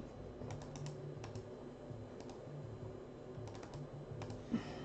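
Faint computer mouse and keyboard clicks, a scattering of sharp ticks, over a low hum.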